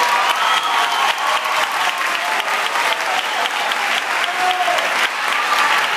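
Audience applauding, dense clapping, with a few voices calling out over it.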